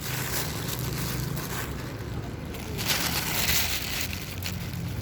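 Rustling and crinkling of a bag and its contents being handled, over a steady low hum.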